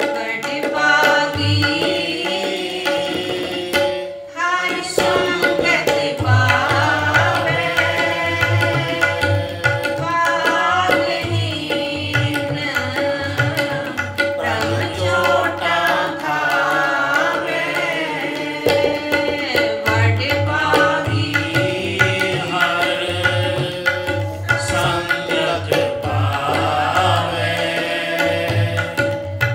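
Sikh shabad kirtan: a woman singing to a harmonium's steady reed chords, with a tabla keeping a regular rhythm under her voice. The low bayan strokes are prominent. The music thins briefly about four seconds in.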